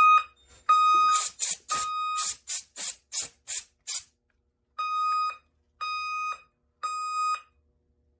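Fire alarm horn sounding steady electronic beeps in groups of three about a second apart, the three-pulse temporal evacuation pattern, twice. Between the groups a harsher, rasping alarm tone pulses about three times a second for some three seconds.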